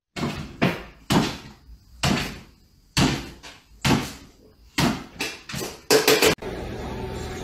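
A cat jumping up and down on a wooden kitchen floor: about a dozen uneven thumps, one or two a second, each with a short echoing tail. About six and a half seconds in they stop and a steady hiss takes over.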